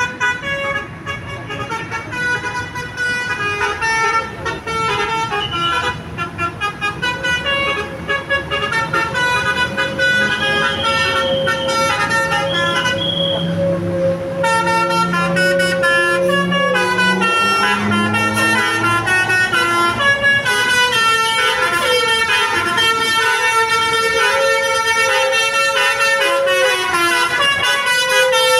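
Basuri V3 telolet horn, a multi-trumpet bus horn, playing a long tune of quickly changing notes.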